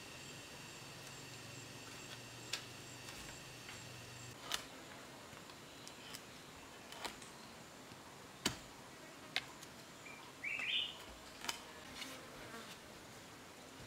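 Sharp single knocks of a wooden mallet striking the wooden crossbar joint, about seven spread unevenly through the clip, the loudest about eight seconds in. A steady faint buzz runs under the first four seconds, and a short rising chirp comes about ten seconds in.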